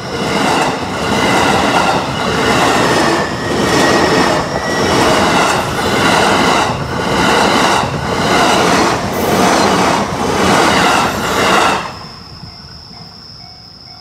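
Electric commuter train passing close by at a level crossing, its wheels clattering over the rail joints in a loud beat about once a second. The noise drops off suddenly about two seconds before the end as the last car clears, leaving a fainter steady high tone.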